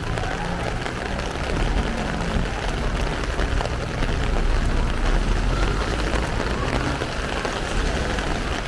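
Heavy rain falling steadily, a dense patter of drops hitting the street, with a low rumble of city traffic underneath.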